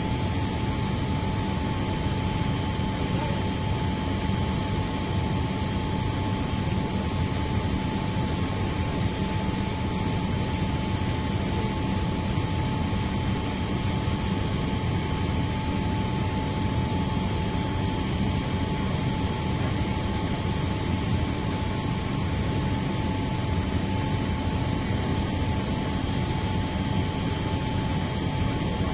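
Steady mechanical drone, heaviest in the low end, with a thin constant whine running over it.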